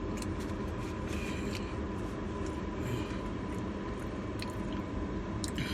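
A person biting and chewing food, with small, scattered mouth noises over a steady low background hum.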